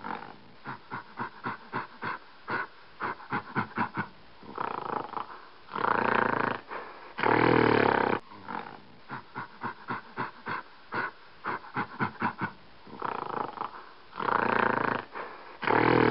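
Red panda calling: runs of short, rapid calls at about three to four a second, broken several times by louder, harsher calls about a second long.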